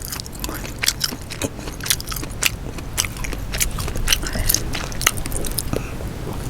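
Close-up eating sounds of boiled crawfish: shells being cracked and peeled by hand and the meat chewed, heard as many sharp irregular clicks and crackles.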